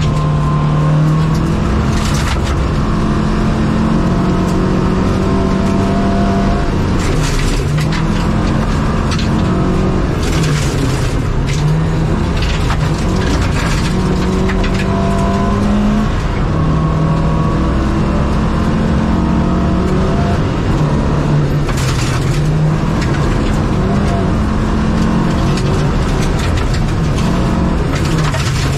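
Opel Kadett rally car's engine heard from inside the cabin at racing speed on a gravel stage, its pitch climbing hard and dropping back again and again as it is driven through the gears and the corners. Sudden crashes of noise from gravel and bumps striking the car's body come in among the engine sound.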